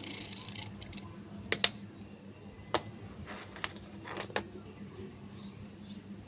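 Small hard parts and packaging being handled: a handful of sharp clicks and taps, the loudest pair about a second and a half in, with short rustles between them over a faint steady hum.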